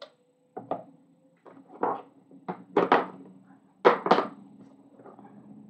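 Hard plastic storage cases clacking and knocking as they are handled and set down on a cutting mat, a string of separate knocks with the two loudest close together about four seconds in. A faint steady low hum from a running laundry machine lies underneath.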